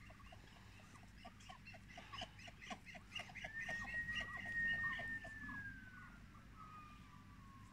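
Muscovy ducks calling softly: short chirping calls repeating about three or four times a second. From about three and a half seconds in, a long thin whistle slowly falls in pitch over the calls.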